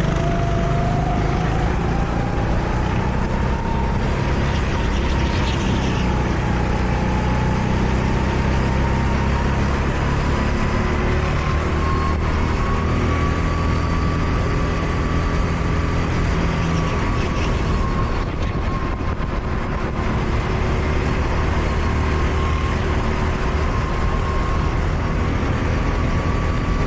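Go-kart engine running under way, its pitch climbing slowly over the first dozen seconds or so and then holding fairly steady.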